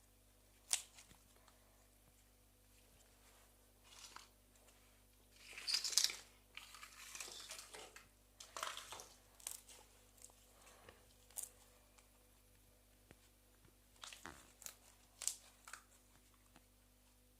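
Slime being handled and squeezed: scattered crackles and small pops, with a louder, denser stretch of crackling about six seconds in.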